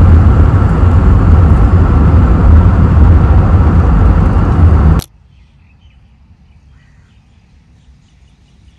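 Loud rushing wind and road noise from a moving car, with a heavy low rumble, that cuts off suddenly about five seconds in. After it comes a quiet stretch with faint bird chirps.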